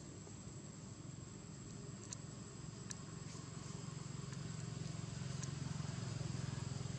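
Low rumble of a distant motor vehicle, growing louder over the last few seconds, over a steady high-pitched whine and a few faint ticks.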